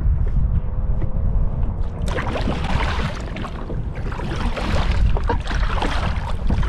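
Wind rumbling on the microphone out on a kayak. About two seconds in, a louder, hissing rush joins it and carries on.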